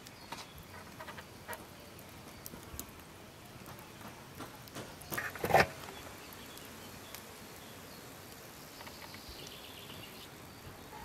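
Faint, scattered crackles and ticks from burning charcoal and wood in an open grill fire, with one sharper knock about five and a half seconds in. Faint high chirps near the end.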